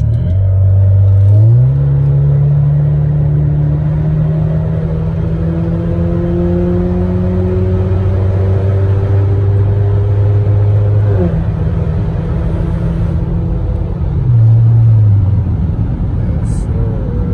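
A turbocharged Buick accelerating at highway speed, heard from inside the cabin over steady road and tyre noise. The engine drone jumps up in pitch about a second and a half in and climbs slowly. It drops in pitch around eleven seconds in and again near fifteen seconds, as the transmission shifts.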